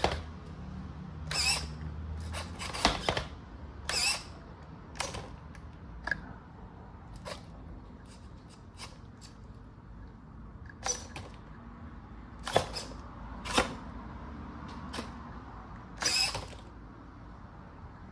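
Redcat Monte Carlo RC lowrider working its hydraulics-style suspension: short servo whirs as the body lifts and drops, with irregular sharp clacks and knocks as the wheels and chassis hit the hardwood floor.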